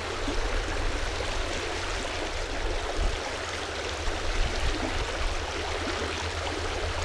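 Shallow creek water rushing over a gravel riffle around the wader's legs, a steady rushing hiss with a low rumble.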